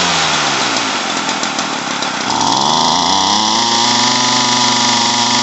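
Ryobi CS30 trimmer's small two-stroke engine running. Its speed is dropping at first, then it is revved up about two seconds in and held high, easing off near the end. It runs a little rich.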